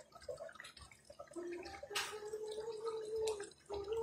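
Curry gravy simmering in a pan, with bubbling and dripping liquid sounds, a sharp click about two seconds in, and a steady low hum through the middle.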